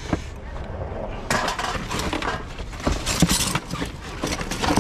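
Rummaging through rubbish in a dumpster: cans and glass bottles clinking and knocking together, with stretches of rustling.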